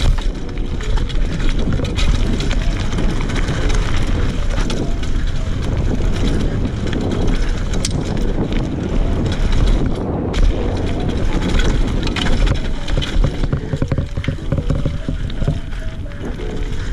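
Mountain bike ridden fast down a dirt forest trail: tyres rolling over dirt and leaves and the bike rattling and knocking over bumps, with wind buffeting the camera's microphone.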